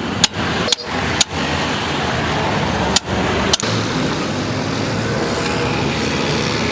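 Five sharp hammer blows, three close together in the first second and a half and two more about three and three and a half seconds in, over a steady noise that runs throughout.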